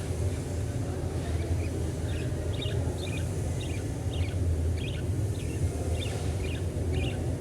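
Budgerigars giving a series of short, soft chirps, about a dozen, starting about a second in: the quiet chatter of contented, sleepy budgies. A steady low rumble runs under them.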